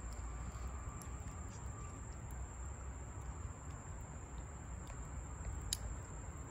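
Faint outdoor background: a steady low rumble on the microphone, a thin steady high tone, and a few faint scattered ticks.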